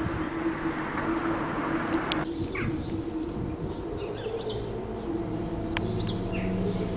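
Small birds chirping in short calls over a steady low hum. A louder rushing noise fills the first two seconds and cuts off abruptly.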